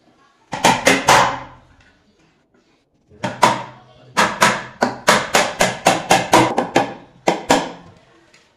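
Hammer driving a nail into the plywood top of a hollow shelf carcass: a few quick blows, a pause of about two seconds, then a steady run of about four blows a second, each knock ringing briefly.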